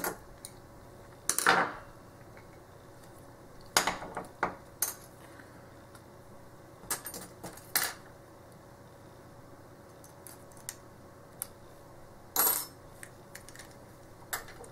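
Metal clicks and clinks of a padlock being taken apart over an aluminium pinning tray, as small parts and tools knock against the lock body and the tray. A scattering of separate sharp clicks, the loudest about a second and a half in and again near twelve and a half seconds.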